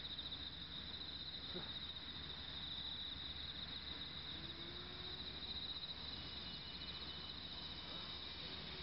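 Insects chirring in a steady, high-pitched continuous trill, faint.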